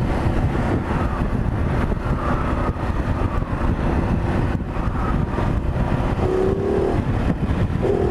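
Ducati Multistrada 950's L-twin engine running steadily at road speed, under a steady rush of wind and road noise.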